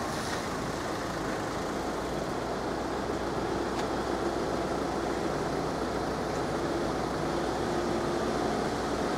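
Steady hiss and hum of road traffic and light rain, with a faint low hum coming and going from about three and a half seconds in.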